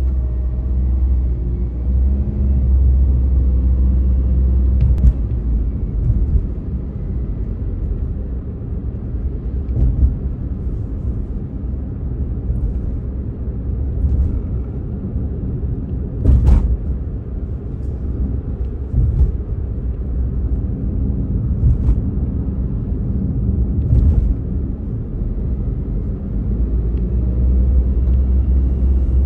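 Road and engine noise heard inside a moving car's cabin: a steady low rumble, with a few brief knocks, the loudest about sixteen seconds in.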